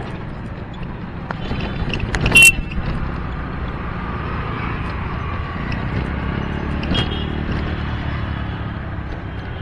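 Steady rumble of a running motor vehicle, with a brief sharp, high-pitched sound about two and a half seconds in and a fainter one near seven seconds.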